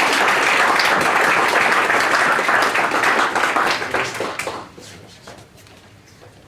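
Audience applauding, dense clapping that dies away about four to five seconds in.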